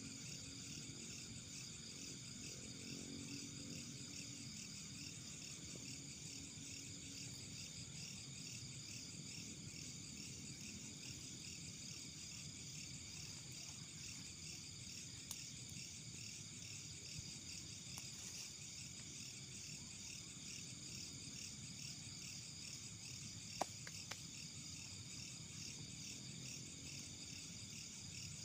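Faint night chorus of crickets and other insects, a steady pulsing chirring. A few isolated sharp clicks, the sharpest near the end.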